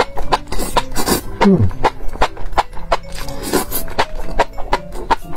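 Close-miked eating of spicy enoki mushroom strands: wet chewing and slurping with quick mouth clicks, a few a second, and a short low falling hum about a second and a half in.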